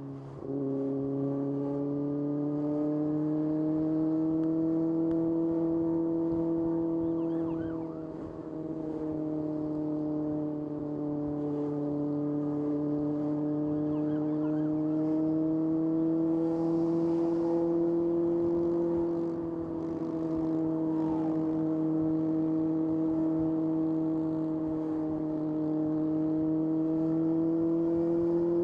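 Kawasaki ZX-6R's inline-four engine running at a steady, fairly high speed under light throttle while riding. Its pitch drifts slowly up and down, and the sound eases off briefly twice.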